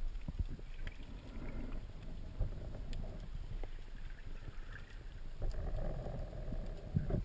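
Sea water sloshing and gurgling around a spearfisher's camera, with a low rumble and scattered small clicks and knocks.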